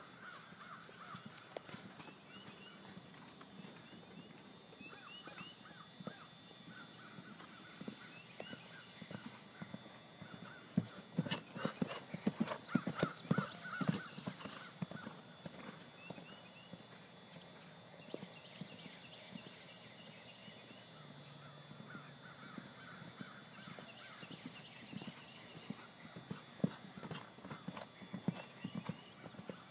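Hoofbeats of a horse cantering on a sand arena. They grow loudest about halfway through as the horse passes close and takes a jump, then fade, and pick up again near the end.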